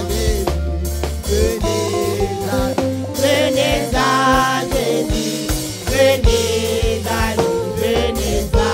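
Women's voices singing a French gospel hymn refrain together into microphones, backed by a band with a drum kit keeping a steady beat.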